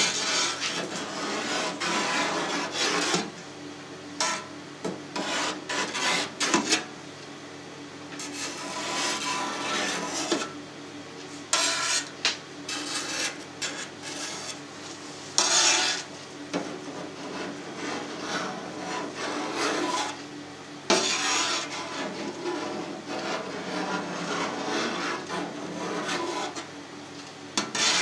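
Kitchen knife cutting soft renneted cheese curd into cubes in a stainless steel pan, its blade scraping along the steel in a series of strokes with short pauses between them.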